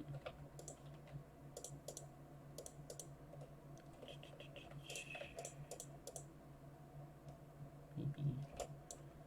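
Faint, irregular clicks of a computer mouse and keyboard while pixels are edited, over a steady low electrical hum.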